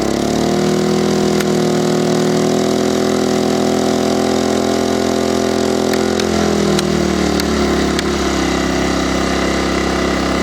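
Small petrol engine of an 850 watt inverter generator running under a light electrical load. Its speed rises sharply about half a second in, holds steady, then drops to a lower steady speed about six to eight seconds in, as an inverter generator's engine speed follows the load drawn from it. A few faint clicks are heard.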